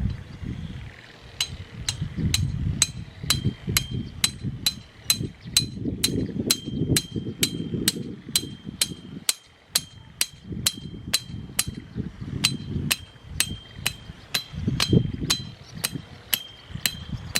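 Hammer blows struck in a steady run, about two to three a second, each with a short metallic ring.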